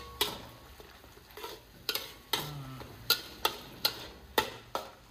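Spatula scraping and knocking against a wok while stirring a ginger-garlic and onion paste sautéing in oil: about ten sharp, irregular strikes over a low sizzle.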